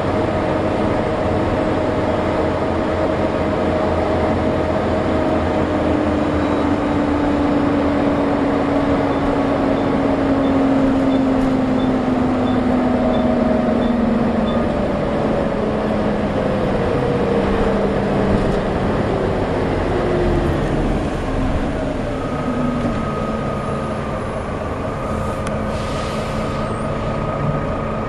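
Volvo B7TL bus engine and driveline running, with a whine that falls in pitch through the middle as the bus slows. A steady higher whine comes in near the end: the hoover-like whine these buses are known for.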